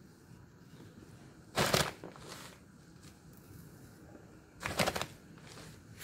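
Dry rice bran packed down by hand inside a metal oil tin around a bamboo pole: two short rustling scrapes about three seconds apart.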